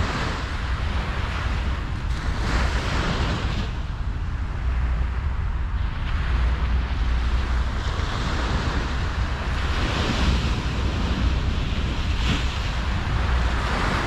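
Ocean surf breaking and washing up a sandy beach, its hiss swelling and easing every few seconds. Under it runs a steady low rumble of wind on the microphone.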